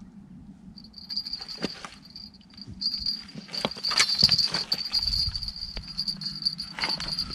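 Spinning reel's drag buzzing in a steady high tone, with brief gaps, as a hooked carp takes line. Sharp clicks and knocks from the rod and reel being handled run through it.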